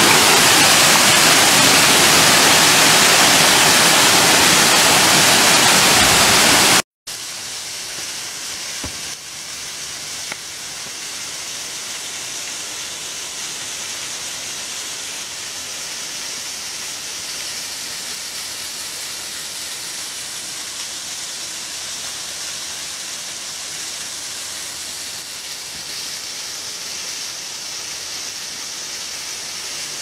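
Waterfall water rushing, loud and close. About seven seconds in it cuts off abruptly, and a second waterfall's steady, quieter and hissier rush follows as it cascades down rock ledges.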